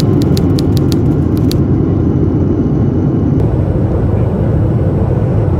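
Airliner cabin noise in flight: a loud, steady low rumble of the jet engines and rushing air.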